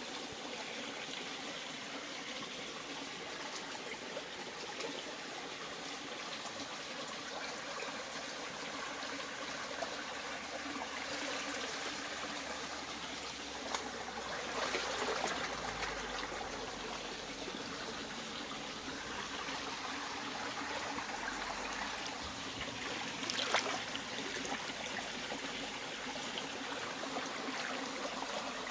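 Mountain valley stream flowing steadily, a continuous trickling rush of water, with a few brief ticks, the loudest about two-thirds of the way through.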